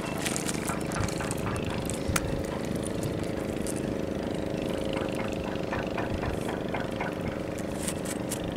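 An engine running steadily at idle, a low even drone, with scattered light clicks and taps over it.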